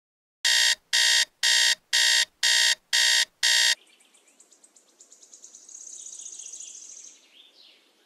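Digital alarm clock beeping seven times, about two beeps a second, then stopping. Afterwards a faint high trill swells and fades, with bird chirps near the end.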